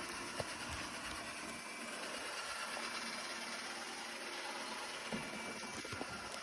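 Robot vacuum cleaner running with a steady motor whir, with a few faint knocks.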